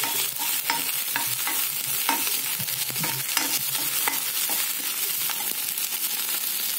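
Onions, green chillies and ginger-garlic paste sizzling in hot oil in a non-stick kadai, with a steel ladle scraping and clicking against the pan as it stirs. The stirring clicks thin out near the end while the sizzle keeps going.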